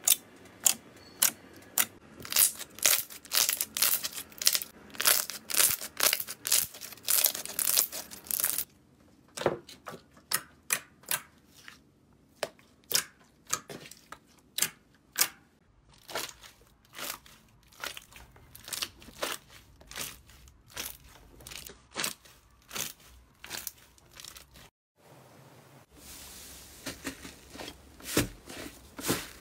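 Slime being squeezed and poked by hand, giving quick runs of sharp wet pops and clicks, several a second, as air pockets burst. Near the end it turns to a softer, continuous crackling.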